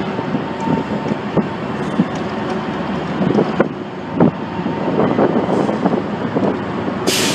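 CSX diesel locomotives rumbling across a steel girder railroad bridge, with scattered knocks and clanks from the wheels and bridge, and a sharp burst of hiss near the end.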